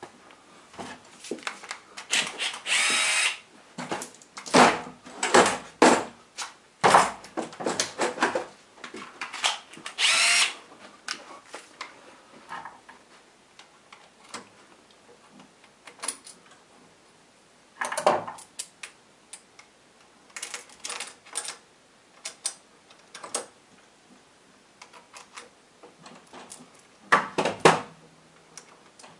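Metal engine parts and tools being handled as a rocker assembly goes back onto a small OHV engine's cylinder head: scattered clinks and knocks with short rattling bursts, the loudest two lasting about a second each, near the start and about ten seconds in.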